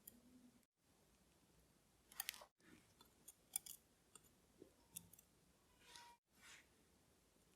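Faint, scattered small clicks and ticks of watchmaker's tools handling the parts of a watch during disassembly, about eight in the middle seconds.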